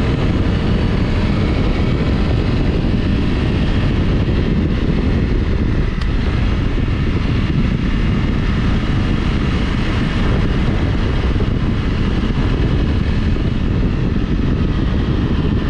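Honda CRF Rally's single-cylinder engine running steadily while the motorcycle is ridden along a dirt track.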